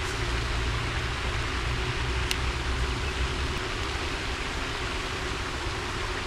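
Steady rushing outdoor background noise with a low rumble underneath, and one brief high click about two seconds in.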